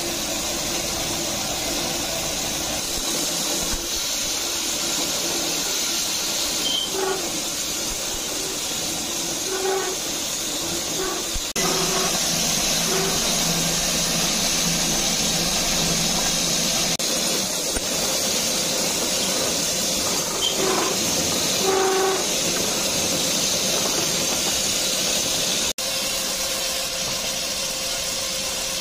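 Electric-motor-driven tyre-cutting machinery running steadily with a loud hiss and a few short squeaks. The sound shifts abruptly twice.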